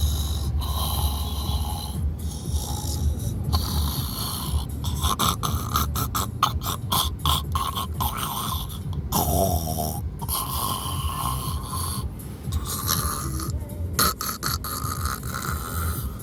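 Snoring, continuous, with a stretch of fast rattling in the middle.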